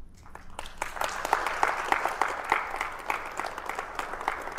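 Audience applauding, starting about half a second in and then going on steadily.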